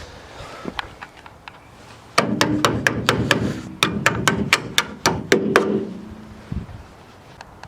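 A hammer striking metal in a quick run of about fifteen blows, roughly four a second, each with a short metallic ring.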